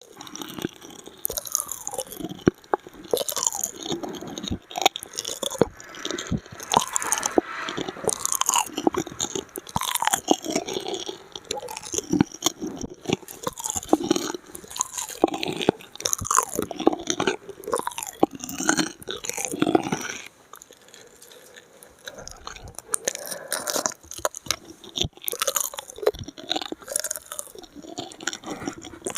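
Close-miked ASMR mouth sounds: a dense, irregular run of wet clicks and chewing noises, quieter for a few seconds about two-thirds of the way through.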